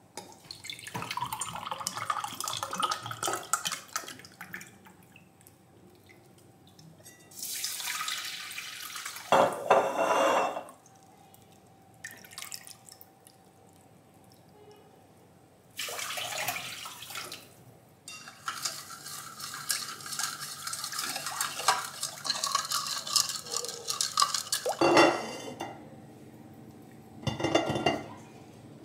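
Kitchen work sounds: water running or being poured in several short spells, among clinks and knocks of dishes and utensils.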